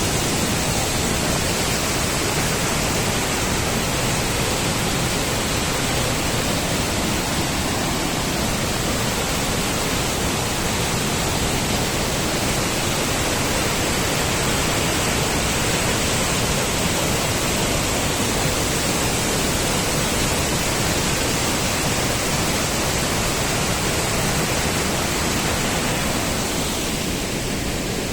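Krimml Waterfalls: a large mountain waterfall's water falling and crashing onto rock, a steady, loud rushing noise.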